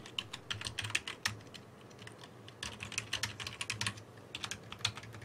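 Typing on a computer keyboard: three short runs of quick keystrokes, quiet next to the speech around them.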